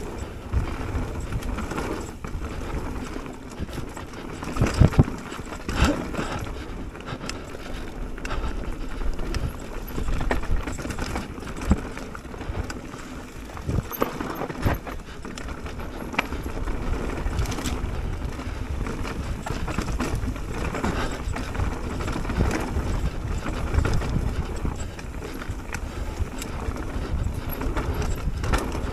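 Mountain bike riding down a dirt singletrack: a steady rumble of tyres rolling over dirt and leaf litter, broken by repeated knocks and rattles as the bike goes over bumps and roots, with a cluster of sharp knocks about five to six seconds in.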